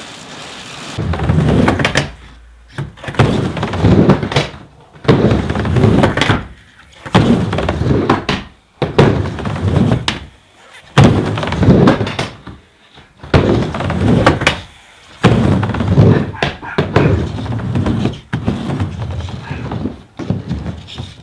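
Skateboard wheels rumbling across a miniramp in repeated passes, about one every one and a half seconds, as the rider pumps back and forth between the walls, with thunks where the board meets the coping or deck.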